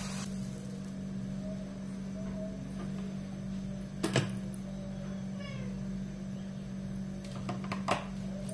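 Steady low hum in a kitchen, with light knocks as a plastic bottle of cooking oil is handled and poured into a wok. A faint falling cat meow comes about five seconds in.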